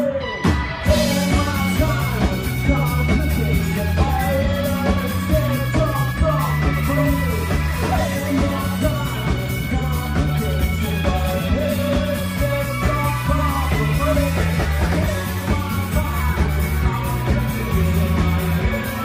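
Rock band playing live and loud: electric guitar, bass guitar and drums with a singer's shouted vocals. The full band comes back in about half a second in.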